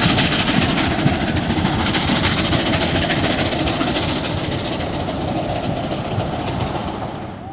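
Narrow-gauge steam train moving away along the track, its running noise fading gradually as it recedes.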